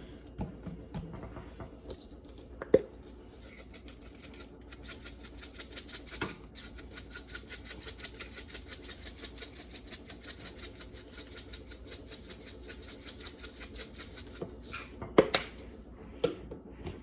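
A seasoning shaker jar shaken rapidly and rhythmically to sprinkle dry seasoning for about ten seconds, with a few sharp knocks before, during and after.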